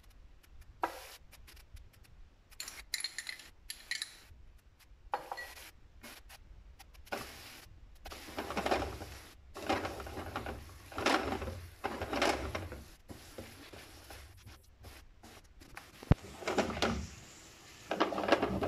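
Plastic spatula stirring and scraping thick tomato sauce around a non-stick frying pan, about one stroke a second through the second half, with a few light utensil clicks and one sharp click near the end.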